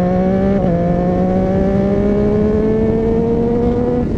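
Motorcycle engine pulling hard under acceleration. A quick upshift about half a second in is followed by revs climbing steadily through the gear, then dropping off near the end, over rushing wind and road noise.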